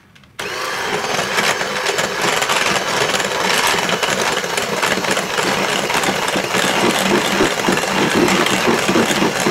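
Electric hand mixer switched on about half a second in and running steadily, a motor hum under the beaters churning flour into thick muffin batter in a glass bowl.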